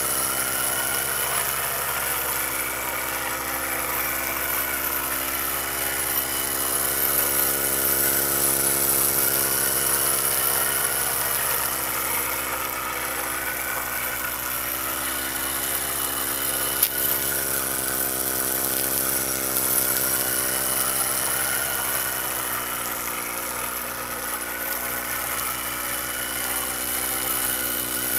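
Miniature toy steam engine with a glass bulb boiler and flywheels, running fast as a steady hum that wavers gently in pitch. A single sharp click comes about seventeen seconds in.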